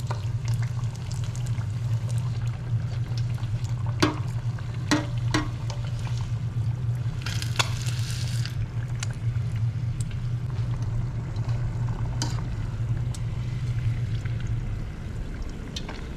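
Battered bluegill frying in an electric deep fryer, the hot oil bubbling and sizzling steadily. Metal tongs click sharply against the fryer a few times around four to five seconds in, and the sizzle swells briefly at about seven to eight seconds. A steady low hum underneath fades out near the end.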